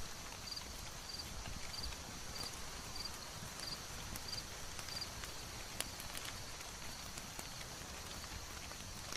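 Layered village ambience: a fire crackling with scattered sharp pops over a steady hiss, and a small high chirp repeating about every two-thirds of a second that stops about five seconds in. Low, muffled clip-clop of horse hooves runs underneath.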